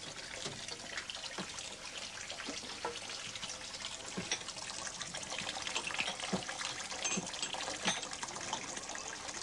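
Tap water running steadily into a stainless steel sink, with a few light clinks and knocks of cups being washed up.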